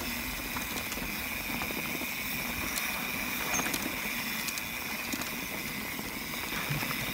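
Mountain bike tyres rolling over a loose dirt trail: a steady rolling noise with scattered small clicks and rattles.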